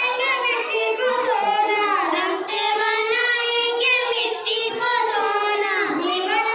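Young girls singing a Hindi song together into handheld microphones, several voices in unison.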